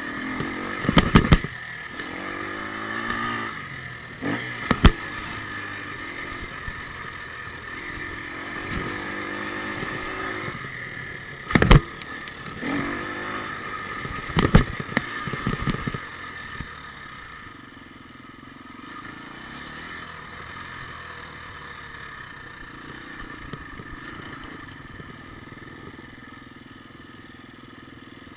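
Husqvarna FE250 single-cylinder four-stroke enduro engine revving up and down while riding, with several sharp knocks in the first half. About halfway through the engine drops to a quieter, steadier low run.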